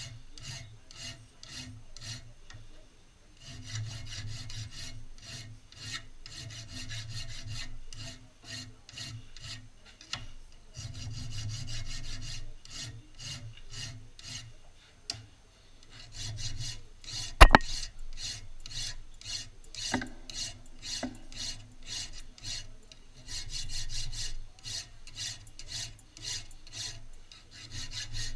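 Hand file rasping over a shotgun action held in a vise, in runs of steady back-and-forth strokes with short pauses between them. A single sharp knock, the loudest sound, comes about two-thirds of the way through, with two lighter knocks soon after.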